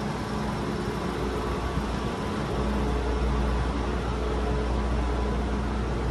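Steady mechanical hum and noise from the SL Hitoyoshi train's coaches standing at the platform, with a deep low hum that grows louder about two and a half seconds in.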